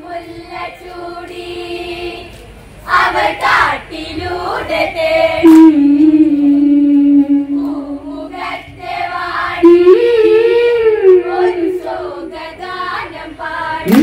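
Women singing a Malayalam Onamkali song in a group, unaccompanied, drawing out long held notes that slide and waver in pitch.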